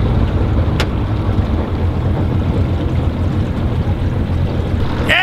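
Engine aboard a bowfishing boat running with a steady low drone, with one light click about a second in.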